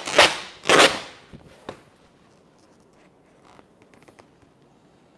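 Vinyl wrap film being handled and pressed onto a mini fridge: two quick swishes in the first second, then a few faint taps.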